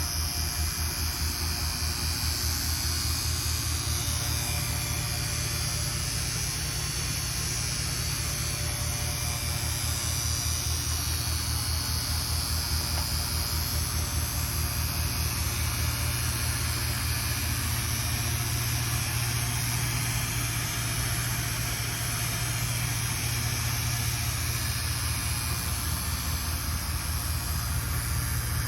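Refrigeration vacuum pump running steadily, evacuating an air conditioner's refrigerant lines: a constant low, fast-pulsing hum with a steady hiss over it.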